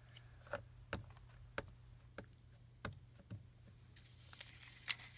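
Faint, scattered light taps and clicks of a rubber stamp and paper being handled on a craft table, with soft paper rustling starting near the end.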